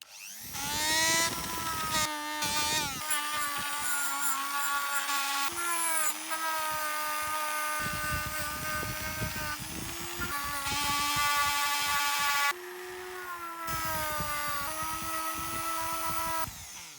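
Small handheld rotary tool running at high speed, polishing a bare die-cast metal car body. It makes a steady whine that steps up and down in pitch several times.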